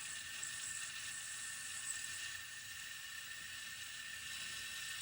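Toilet tank fill valve hissing steadily as water keeps running through it: the valve has not yet shut off completely.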